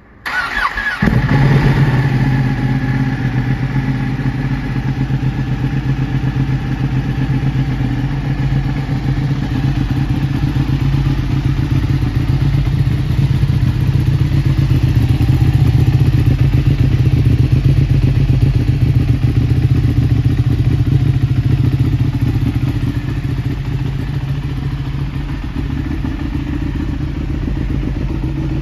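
Ducati 1299 Panigale S's 1285 cc V-twin with an Akrapovic exhaust starting: a brief crank on the electric starter, catching within about a second, then idling steadily, a little quieter in the last few seconds.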